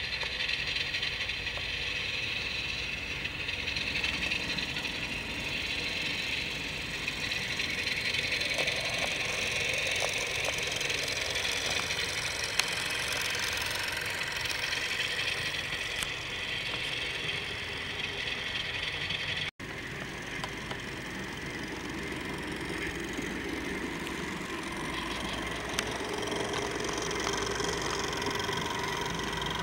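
Model diesel locomotives and cars running on the layout track: a steady clattering rattle of small wheels over the rails with a motor hum. There is a brief dropout about two-thirds of the way through.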